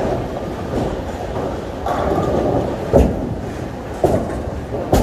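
Bowling alley din: bowling balls rumbling down the lanes, with several sharp knocks of balls and pins, the loudest about three seconds in and just before the end.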